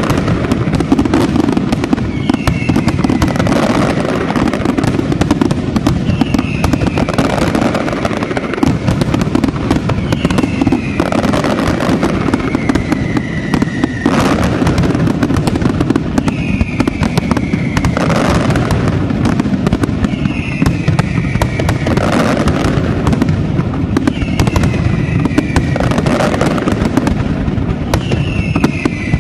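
Aerial fireworks display: a continuous, dense barrage of shells bursting and crackling, with a falling whistle about every four seconds.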